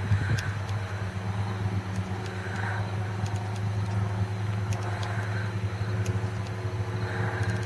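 A steady low mechanical hum, like a running motor, with a faint hiss that swells and fades every two to three seconds.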